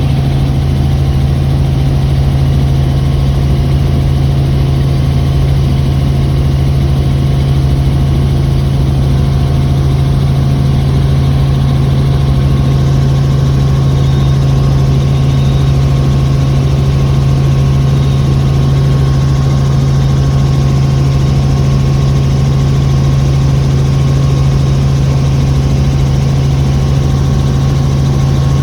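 Helicopter engine and rotor running in flight: a loud, steady, low drone that does not change.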